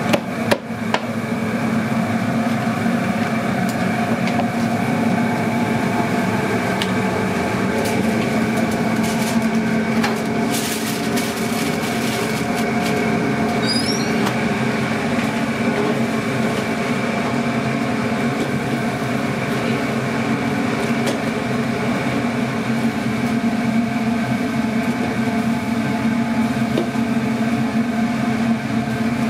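Steady, loud mechanical hum of commercial kitchen equipment running. A few knocks come at the start and a brief burst of clatter about ten seconds in.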